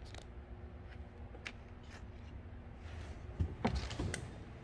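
Steady low background hum with a few faint light clicks, then a brief cluster of sharp knocks and rustling about three and a half seconds in.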